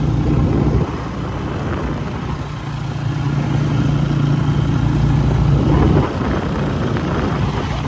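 Vehicle engine running steadily on the move, with road and wind noise, easing off slightly twice.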